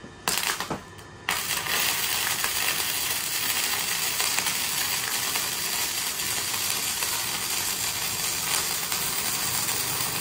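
MIG welder's arc crackling as a butt weld is run between two pieces of box-section steel: two short bursts as the arc strikes, then a continuous crackle from about a second in as one bead is pulled along the joint.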